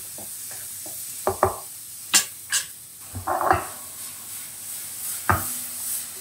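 Chopped mushrooms and onions sizzling in a nonstick frying pan, a dry sauté with no liquid released from the mushrooms. A wooden spatula stirs through them, making scattered knocks and short scrapes against the pan.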